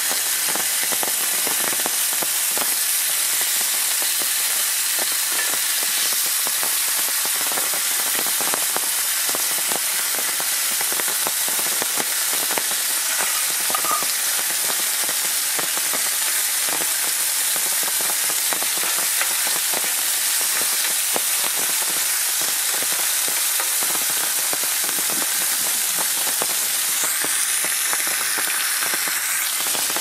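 Beef burger patty and sliced onions sizzling steadily on a hot cast-iron grill pan over a wood fire, with many small crackles of spitting fat.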